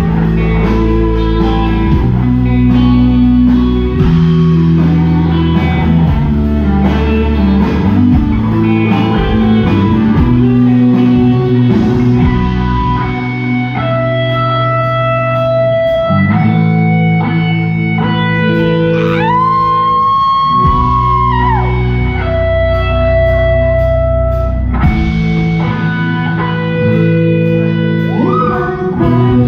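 Live rock band playing loud, with electric guitars and bass guitar over drums. Busy riffing gives way to long held notes partway through, and one long note bends up and back down about two-thirds of the way in.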